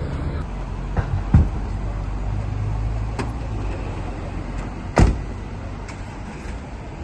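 Doors of a Volkswagen Crafter police van being shut: two knocks about a second in, another about three seconds in, and one loud bang about five seconds in. A steady low rumble of street traffic and the van runs underneath.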